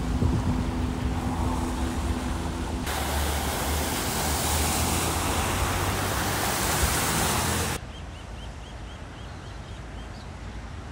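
Traffic on flooded roads: engines idling at first, then about three seconds in a loud, steady rush of water as a van ploughs through deep floodwater. This cuts off suddenly to a quieter wash of water, with a quick run of high chirps near the end.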